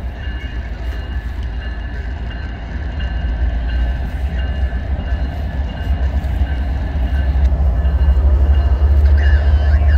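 Diesel freight locomotives pulling a departing train: a deep engine rumble that grows steadily louder as they approach.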